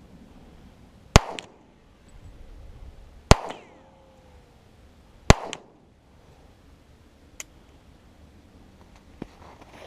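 Three pistol shots fired about two seconds apart, each sharp crack followed by a short echo. Two much fainter sharp ticks come later.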